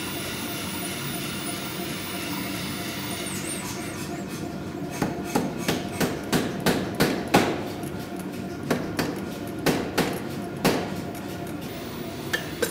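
Lobdell-built Hazel mechanical power hammer striking hot steel in a shaping die: about a dozen sharp, uneven blows starting about five seconds in, over a steady machine hum. The hot steel is being squished into the die to form a tong part.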